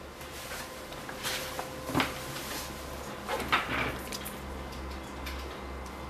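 Small clicks and knocks of tools and parts being handled at a soldering bench, the loudest about two seconds in and again about three and a half seconds in, over a steady low electrical hum.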